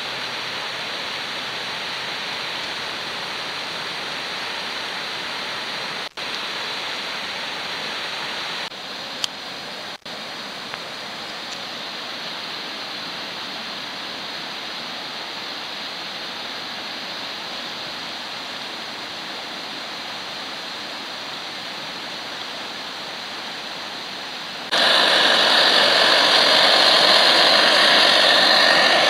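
MSR DragonFly liquid-fuel stove burner running with a steady rushing hiss, broken briefly by a few cuts. Near the end it turns suddenly much louder and harsher.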